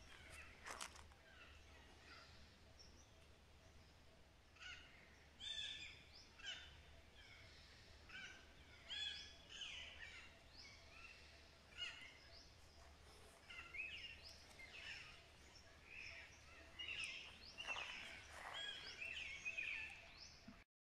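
Faint bird calls: short chirps and notes repeating irregularly, over a faint low hum, with a sharp click or two near the start.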